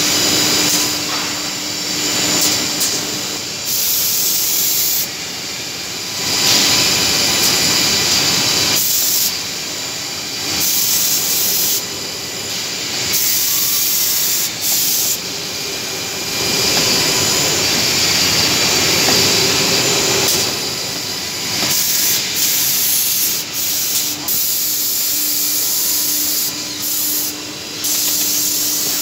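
Holztek six-sided CNC drilling machine drilling a wood panel at high speed: a steady hissing, whirring machine noise that swells in spells of a few seconds as the spindles drill, then drops back while the head moves on, over a steady low hum.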